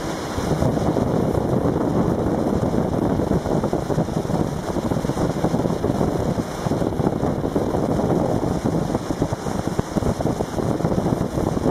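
Wind buffeting the microphone over the steady running of a speeding tour boat's motor and the rush of water past the hull, a dense, fluttering noise with no break.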